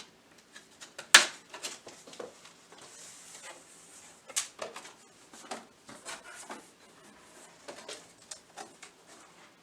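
Cricut box packaging being cut open and handled: irregular clicks, knocks and rustles, with a sharp knock about a second in and another about four seconds later.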